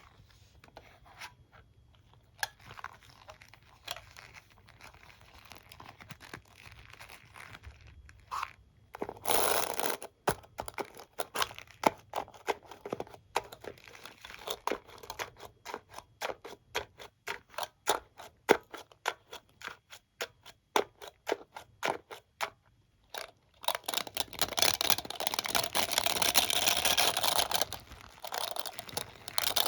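Comb and hairbrush being handled. It starts with faint scratching, then a long run of quick, sharp ticks several times a second. After a brief pause near the end comes a dense, continuous scratching.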